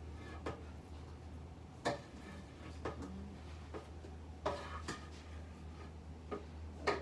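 Scattered light knocks and clicks of ground meat being pushed by hand into a plastic sausage-stuffer tube and the tube knocking against the bowl, over a steady low hum.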